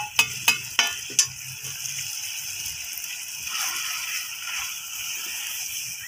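A metal spoon knocked sharply about five times in quick succession as masala powder is tipped into a clay cooking pot. Then a wooden spatula stirs and scrapes the spiced chicken and onions in the clay pot, a steady rustling scrape.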